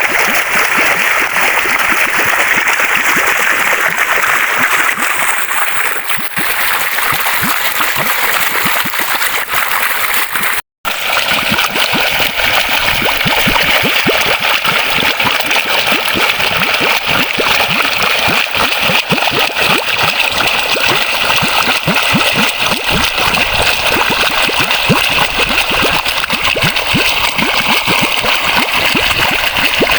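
Waterfall: water falling and splashing in a steady rush. The sound cuts out for a split second about eleven seconds in, then carries on with a slightly brighter hiss.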